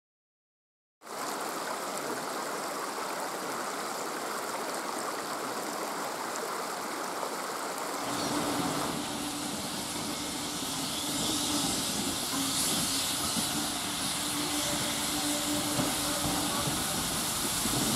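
Steady rushing of a stream, then from about eight seconds in the steam hiss of Andrew Barclay 0-6-0ST saddle-tank locomotive 'Horden' approaching, with a faint steady low hum under it.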